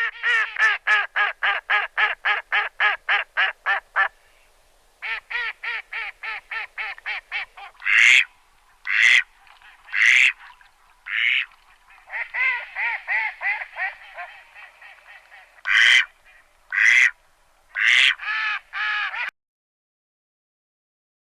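Ducks quacking: fast runs of short quacks at about four or five a second, broken by single louder quacks. The calling stops about two seconds before the end.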